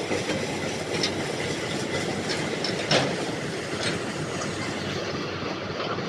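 Combine harvester machinery running with a steady mechanical rattle and clatter, with scattered clicks and a louder clank about three seconds in.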